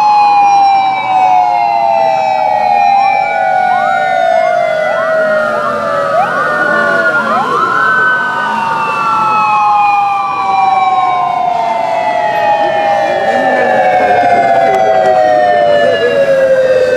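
Several police motorcycle sirens sounding together, their long wails slowly falling in pitch, with a run of short rising sweeps between about three and eight seconds in.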